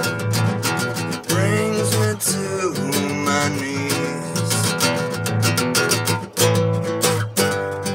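Acoustic guitar strummed in a steady rhythm, with a man singing along over the chords.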